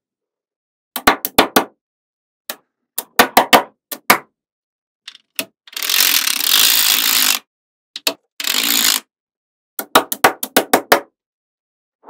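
Small magnetic balls clicking sharply together in quick runs as rows of balls snap onto a wall of balls. About six seconds in comes a longer rattling scrape as a thin strip is drawn along a row of balls, and a shorter scrape follows near nine seconds.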